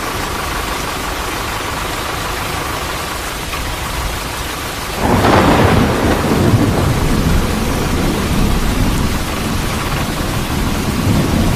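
Thunderstorm sound effect: steady rain hiss, with a roll of thunder breaking in about five seconds in and rumbling on.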